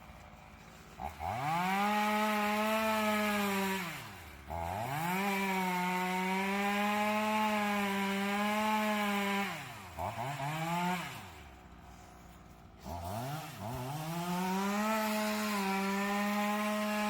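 Chainsaw cutting into a tree: it speeds up to full speed, holds there for a few seconds, then winds down, about three times over, with a short burst about ten seconds in.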